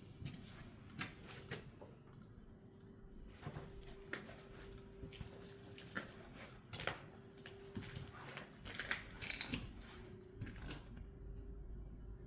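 Irregular light clicks and taps, with a faint steady hum underneath; a brighter cluster of jingling clicks comes about nine seconds in.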